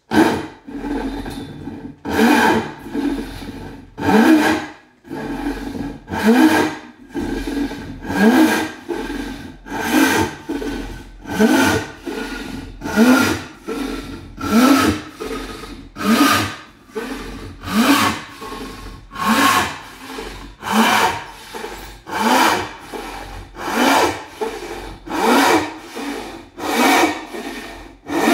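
Rip-sawing European oak by hand with a 700 mm frame saw fitted with a deep, fine-toothed Japanese-style blade: steady rasping strokes, a louder one about every two seconds with a lighter one between. A faint ringing note slowly drops in pitch through the middle of the cut.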